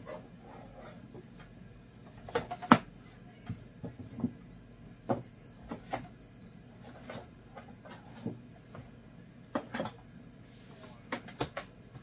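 Kitchen knife chopping a large zucchini into chunks on a plastic cutting board: irregular sharp knocks as the blade comes down through the flesh onto the board, the loudest about two and a half seconds in.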